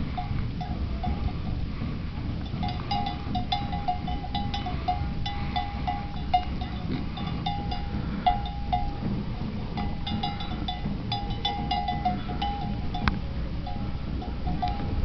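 Wind rumbling steadily on the microphone under a stormy sky, with short, repeated runs of a high ringing tone coming and going throughout.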